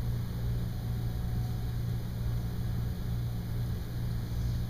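Steady low hum of room background noise, with no marker squeaks or other sounds standing out.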